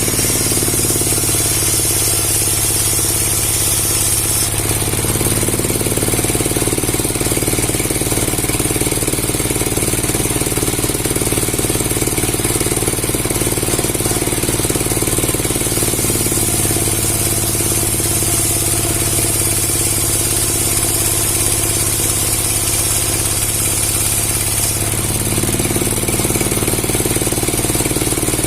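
Engine-driven machinery running steadily with a fast, rattling pulse. Its tone shifts about four seconds in, again past the middle, and near the end.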